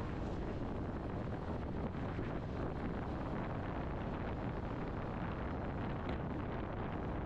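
Wind buffeting the microphone: a steady low rumbling noise with no engine tone in it.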